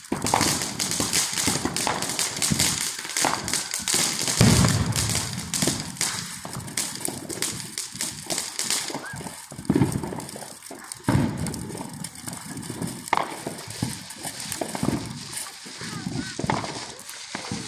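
Ground fountain firework hissing and crackling as it sprays sparks, with dense rapid pops throughout.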